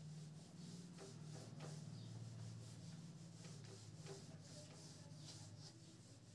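Faint rubbing of a whiteboard being wiped clean by hand, over a steady low hum.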